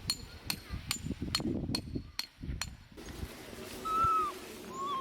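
A quick run of sharp metallic clicks, about three a second, stops short; then a cat meows twice, short rising-and-falling calls, near the end.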